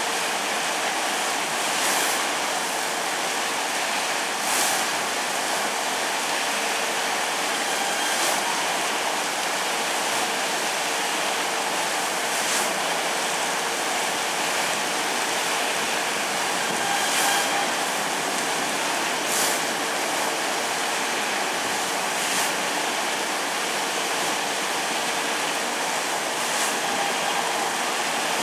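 Automatic train-washing machine spraying water and running its rotating brushes along the side of an electric train as it rolls slowly through: a steady rush of water spray with a faint steady hum, and short hissy swells every few seconds.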